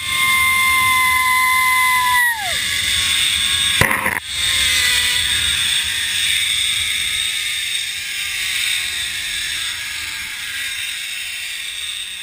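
Zip line trolley pulleys running along the steel cable: a high whine that slowly drops in pitch as the rider slows toward the landing platform, over wind rushing on the microphone.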